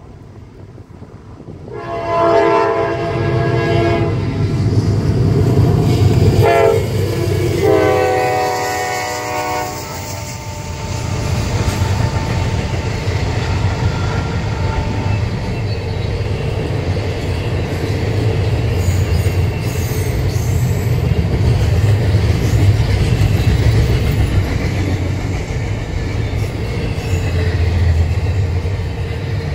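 A Norfolk Southern diesel freight locomotive's multi-chime air horn sounds a long blast, a short one and another long one. Then comes the steady rumble of the locomotives and intermodal cars passing at speed, with wheel clicks over the rail joints.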